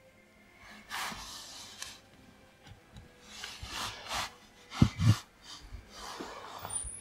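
Month-old kittens scrambling and scuffling over each other on bedding in a wooden box, making rustling noise in several short spells, with two dull thumps about five seconds in.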